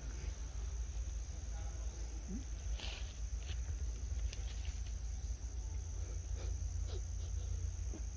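Insects chirring in a steady, high-pitched drone, over a low rumble, with a few short soft clicks or rustles about three seconds in and again near the end.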